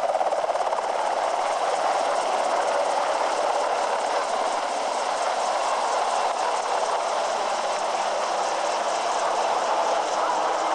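UH-60 Black Hawk helicopter running: steady rotor and turbine noise from its twin turboshaft engines, unbroken throughout.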